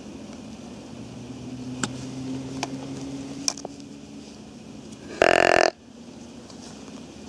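A single loud, pitched deer call lasting about half a second, a little after five seconds in. Before it, a faint low hum and a few light ticks.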